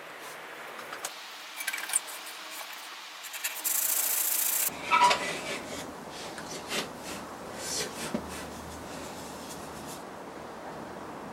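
Rubbing and scraping on a wooden workpiece in short edited pieces: a brief steady hiss about four seconds in, then irregular scrapes with a few light knocks.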